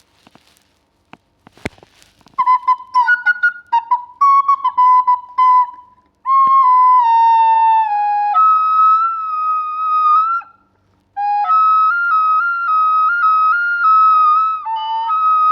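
A cheap newly unboxed flute blown by a beginner who does not know how to play it. A few handling clicks come first, then short choppy notes from about two seconds in. After that come longer held notes that slide and jump between a few pitches, with a short break near the middle.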